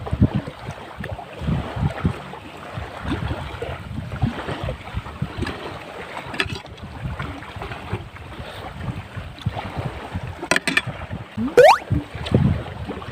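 Wind buffeting the microphone over surf at the shore, with uneven low thumps. Near the end come a few sharp clicks and then a quick rising whistle-like sweep, the loudest sound here.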